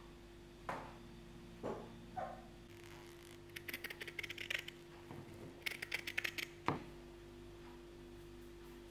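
Scissors cutting through cotton fabric in two runs of quick, crisp snips. A few soft thumps come before them and a sharper knock at the end. A faint steady hum runs underneath.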